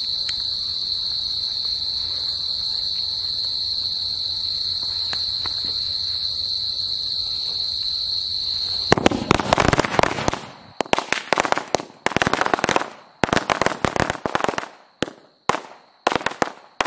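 Crickets chirping steadily. About nine seconds in, a Pothi's 100-wala firecracker string (ladi) starts going off in rapid pops, in several clusters with short gaps between them, and stops just before the end.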